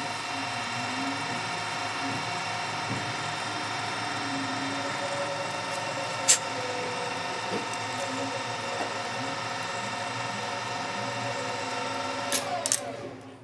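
Metal lathe running with its chuck spinning, the motor and gearing giving a steady whine, with a sharp click about six seconds in. Near the end come a few clicks, and the whine drops in pitch as the lathe slows down.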